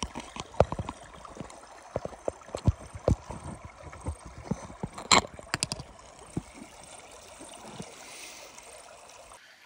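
Plastic snuffer bottle sucking water and fine gold out of a plastic gold pan: a string of irregular clicks and small knocks for about six seconds, then quieter.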